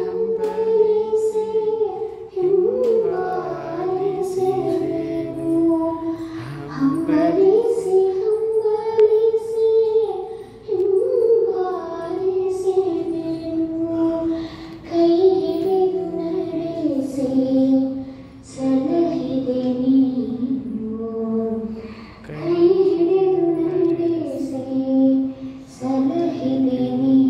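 Voices singing a devotional song in long, held melodic phrases, with brief breaks between lines every few seconds.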